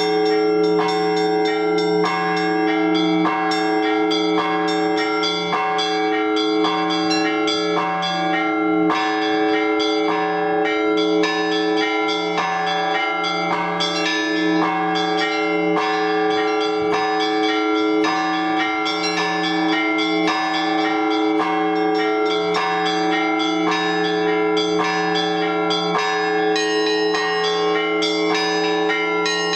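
Orthodox church bells rung together in a continuous peal: rapid, rhythmic strikes of the smaller bells over the lingering hum of the larger ones.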